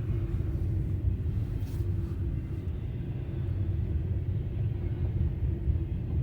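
Norfolk Southern double-stack intermodal freight train rolling past, a steady low rumble with a faint steady hum above it.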